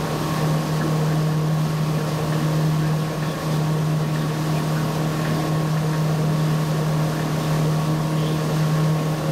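Motorboat engine running at a steady towing speed, a constant drone with the rush of wind and churned water.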